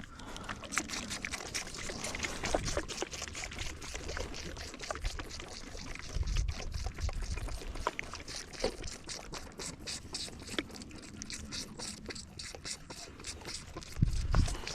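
Orphan lambs sucking milk from feeding bottles: a steady, irregular run of quick wet sucking and slurping clicks. A couple of low bumps come in the middle and near the end.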